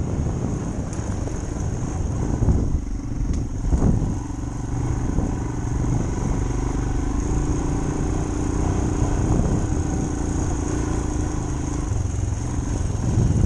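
Royal Enfield motorcycle engine running steadily at low speed on a rough dirt trail, with a couple of knocks from the bike jolting over bumps about three to four seconds in.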